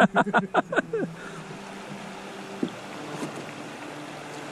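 River water rippling steadily around a drifting boat, an even hiss, with a short burst of a man's voice in the first second.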